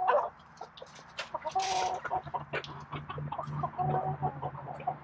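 Backyard chickens clucking, with many short clucks and a couple of drawn-out calls about two and four seconds in.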